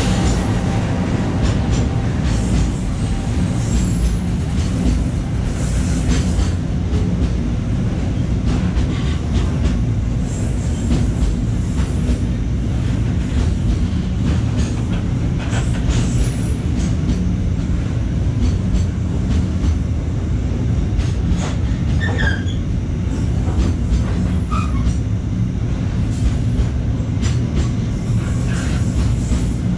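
KRL electric commuter train running along the track: a steady low running noise with scattered clicks from the wheels, and a couple of brief high squeals about two-thirds of the way through.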